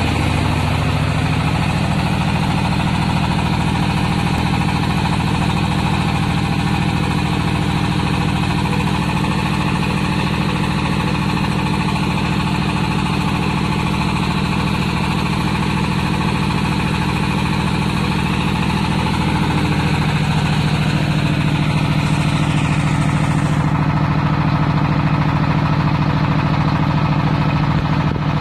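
Engine of a tractor-mounted hydraulic water well drilling rig running steadily under drilling load, with a steady, even hum. Its note shifts slightly and turns a little louder about two-thirds of the way through.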